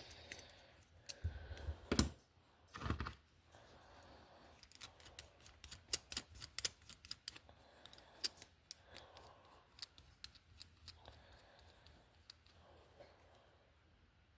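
Small tools and slot car parts handled on a workbench while a wheel hub is fitted back onto the rear axle: scattered light clicks and ticks, with louder knocks about two and three seconds in and a quick run of ticks in the middle.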